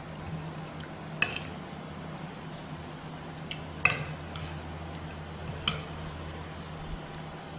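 Metal spoon clinking against a plate of rice three times, the loudest clink a little under four seconds in, over a steady low hum.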